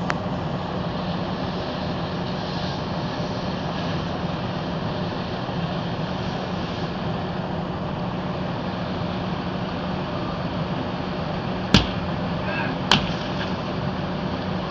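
Two sharp cracks about a second apart near the end, which fit the burning car's windows being broken. Under them runs a steady drone with a constant low hum.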